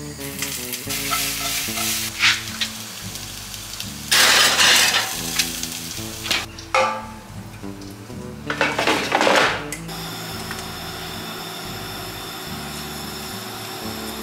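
Background music over kitchen work sounds: two loud hissing bursts of about a second each, around four and nine seconds in, with a few sharp clicks between them.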